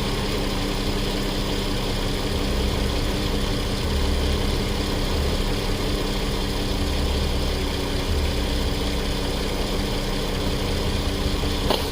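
2008 Volkswagen Passat's 3.6-litre VR6 engine idling steadily, with an uneven low pulsing underneath.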